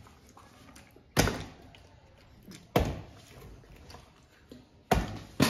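Partly filled plastic water bottle being flipped and landing on a table with a hard knock, four times: evenly spaced at first, with the last two close together near the end.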